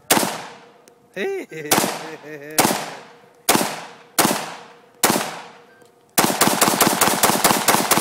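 AR-15 rifle fired six times, about a second apart, each shot sharp and loud with a short echo. About six seconds in comes a rapid string of shots, several a second. A voice calls out briefly between the first shots.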